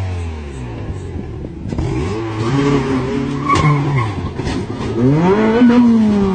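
Rally car engine driven hard: the revs fall away at first, then after an abrupt change about a second and a half in they climb and drop through gear changes, rising again near the end.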